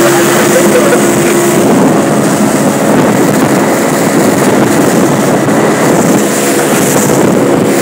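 A 60 hp Yamaha outboard motor running smoothly as the boat moves through chop, with wind rushing over the microphone.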